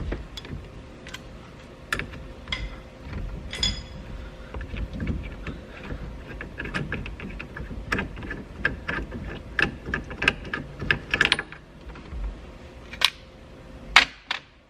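Socket ratchet clicking as the 7/8-inch nut holding the steering wheel onto the steering column is worked off. There are scattered metal clicks and knocks, a fast run of ratchet clicks through the middle, and a few louder knocks near the end.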